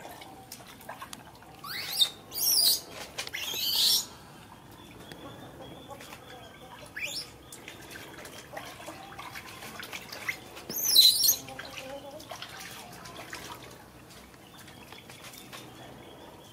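Baby monkey squealing in shrill, high-pitched cries while it is being washed: a cluster of squeals about two to four seconds in, a brief one near seven seconds, and the loudest about eleven seconds in.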